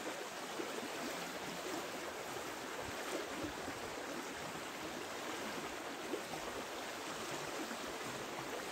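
Shallow river running over stones: a steady rush of water, with a few faint ticks over it.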